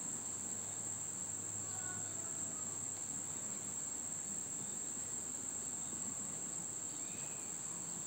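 Steady, high-pitched insect chorus: a continuous shrill trill that holds one pitch without a break.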